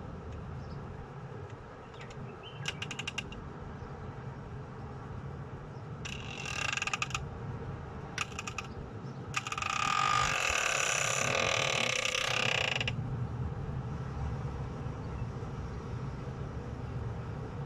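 Steady low rumble with a few bursts of clicking and creaking mechanical noise over it. The loudest and longest burst lasts about three seconds, past the middle.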